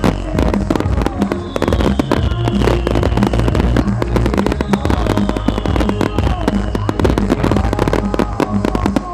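Fireworks display going off: a dense, continuous run of bangs and crackles from bursting shells, over music with a heavy bass and a regular beat. A falling high tone comes back about every two and a half seconds.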